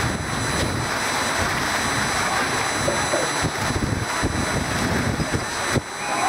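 Wind buffeting the microphone: a steady rush broken by irregular low gusts.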